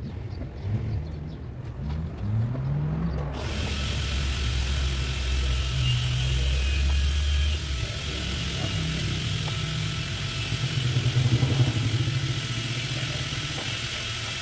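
An engine running, its pitch rising in a few short revs over the first seconds. About three seconds in, a steady hiss starts and stays to the end.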